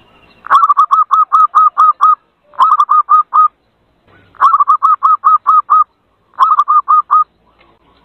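Zebra dove (perkutut) calling: four runs of short, quick staccato cooing notes, each run lasting about one to one and a half seconds, with brief pauses between runs.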